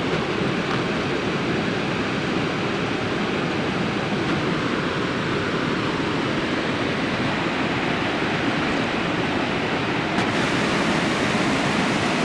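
Steady, even rushing of flowing water from a mountain stream, unbroken and constant in level.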